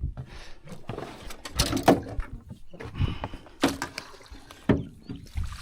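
Irregular knocks and thumps on a small fishing boat, about half a dozen over a few seconds, as a freshly landed redfish and tackle are handled on deck.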